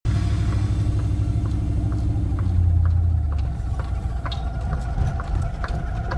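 Chevy Suburban running and driving, heard from inside the cab as a low engine and road rumble that eases a little about halfway through. A light ticking comes through about twice a second.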